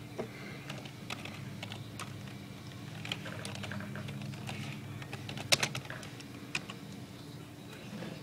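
Computer keyboard being typed on in irregular bursts of key clicks, the loudest about five and a half seconds in, over a steady low hum.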